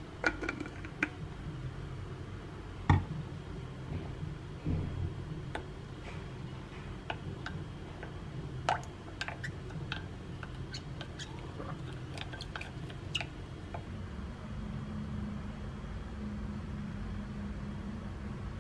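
Wooden spoon stirring mustard dressing in a small glass bowl: wet mixing with scattered clicks and knocks of the spoon against the glass, the loudest knock about three seconds in and a run of light clicks in the middle. A low steady hum comes in near the end.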